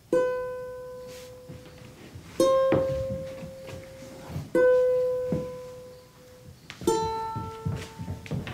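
Acoustic guitar played one note at a time: four single plucked notes about two seconds apart, each left to ring out and fade. A few soft knocks fall between the notes.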